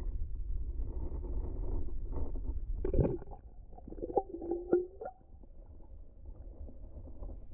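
Low rumbling water noise on an underwater camera's microphone, with a sharp knock about three seconds in and a brief tone with a few clicks soon after.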